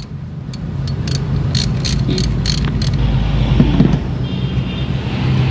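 Ratchet wrench clicking in quick strokes, about four a second for the first two and a half seconds, as a fuel-line fitting is loosened for bleeding, over a low steady hum.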